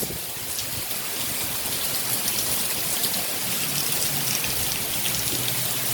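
Heavy tropical-storm rain falling steadily, a dense even hiss of drops hitting surfaces. A faint low steady hum sits underneath from about halfway.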